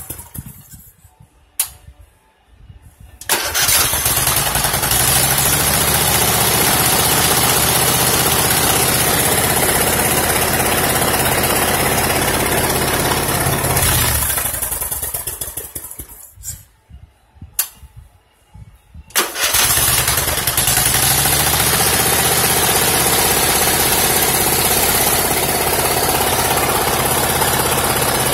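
Rebuilt 21 hp Briggs & Stratton V-twin engine running steadily, shut off and restarted twice. Each time it winds down to near silence, a click or two comes in the gap, and it starts up again within a couple of seconds and settles back to an even run.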